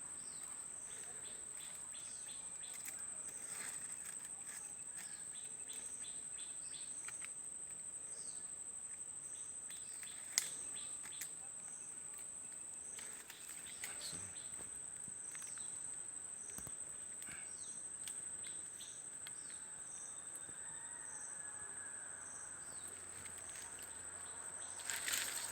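Insects trilling in a steady high-pitched drone, with a softer pulsing call repeating evenly beneath it. Scattered small clicks and rustles, one sharper click about ten seconds in.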